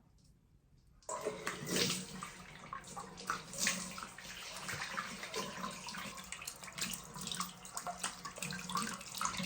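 Water running and splashing, starting abruptly about a second in, with many small spatters through the steady rush.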